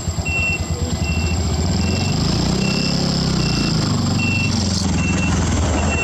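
A vehicle's reversing alarm sounding a short high beep about every 0.8 seconds, over the low running of its engine, which revs up and back down in the middle.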